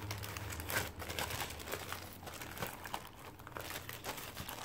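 Clear plastic bag crinkling as hands handle it and slide a floral album back into it, with irregular crackles throughout.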